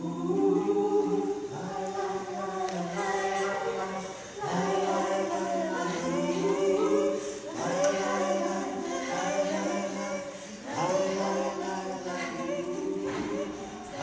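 Four voices singing wordlessly in a cappella harmony, in held phrases that start afresh every three to four seconds.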